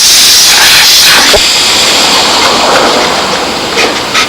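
Steam cleaner's jet hissing steadily as it blasts grime off engine parts, easing off after about two to three seconds, with a few short rasping strokes near the end.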